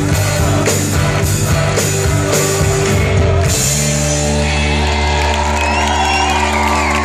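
Live rock band playing with drums keeping a steady beat; about three and a half seconds in the drums stop and a held chord rings on, the song's closing chord.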